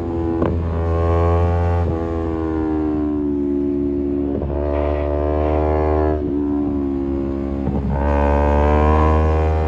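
Kawasaki Z250 motorcycle engine through a SeaPro aftermarket muffler, riding with the engine note sliding down and up. The note breaks briefly several times, at shifts or throttle changes. Near the end the note rises and gets louder as the bike accelerates.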